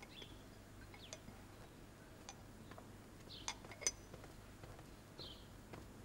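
Light clinks of porcelain teacups and lids being handled, a few separate soft taps spread over several seconds, with faint bird chirps in the background.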